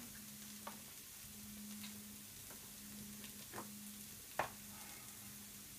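Grated carrot and onion frying in a pan with a soft, steady sizzle over a steady low hum, with a few faint clicks in the middle.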